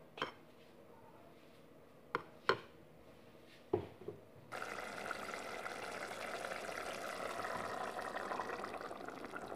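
A metal spoon clinks against a bowl about five times while stirring thick puréed molokhia leaves. About four and a half seconds in, this gives way to the steady bubbling of chicken broth simmering in a pot as the molokhia is poured in.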